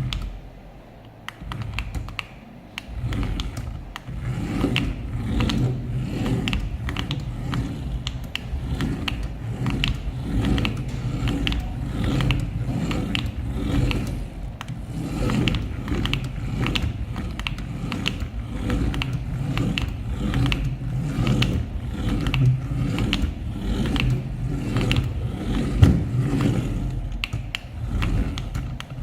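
Toy RC off-road crawler car driving: its small electric motor and plastic gear train run with a low rumble and frequent rattling clicks, starting about two and a half seconds in.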